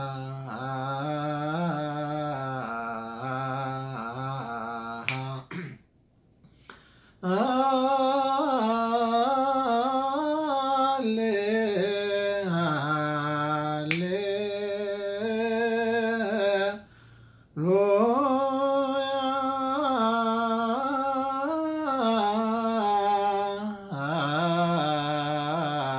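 A man's solo voice chanting an Ethiopian Orthodox abun hymn in slow, melismatic zema style, with long wavering held notes. He pauses for breath about six seconds in and again around seventeen seconds. Two brief sharp clicks come about five and fourteen seconds in.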